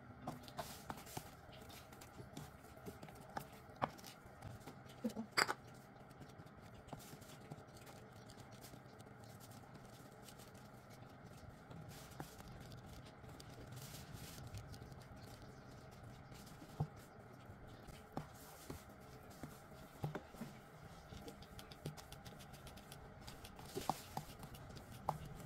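A metal spoon mixing soft butter cookie dough in a bowl as flour and corn starch are worked in: faint scraping and squishing with scattered light clicks of the spoon against the bowl, the sharpest about five seconds in.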